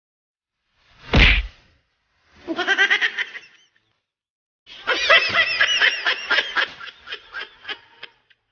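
A single thump about a second in, then women laughing in short bursts that grow into longer laughter.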